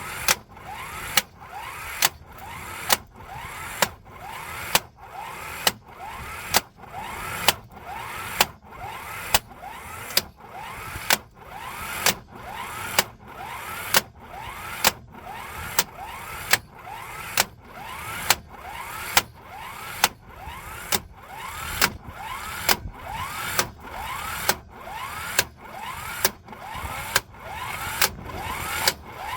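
Cordless impact wrench hammering slowly and evenly, about one sharp blow a second, its motor whining up in pitch between blows.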